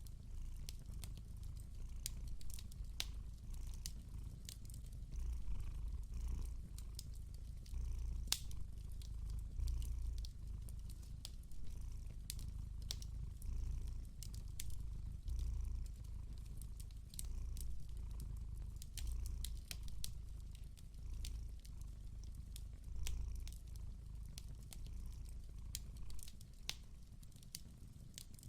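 A cat purring close up, a deep steady rumble that swells and eases about every second and a half with its breaths, over the scattered sharp crackles of a wood fire.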